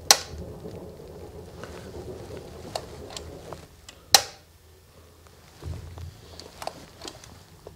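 RCD socket outlet snapping off as a Megger MFT1741 tester trips it during a trip-time test, two sharp clacks about four seconds apart, with fainter clicks in between as the socket is reset by hand.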